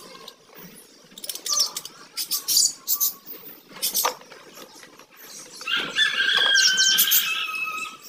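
Budgerigars chattering: spells of fast, scratchy warbling notes, then a longer steady-pitched call from about six seconds in.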